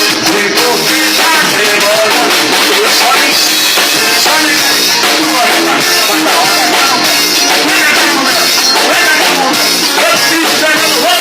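Band playing a swung xote, a Brazilian dance rhythm, with the drum kit keeping a steady beat under the melody instruments.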